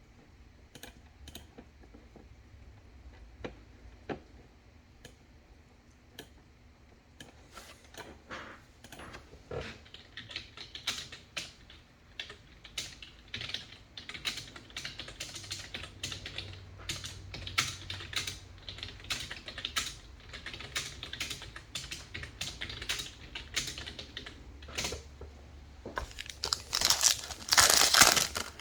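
Trading cards being handled and sorted, making a run of light clicks and taps as cards are flicked through and set down, sparse at first and busier after several seconds. Near the end comes a louder burst of crinkling from a pack wrapper.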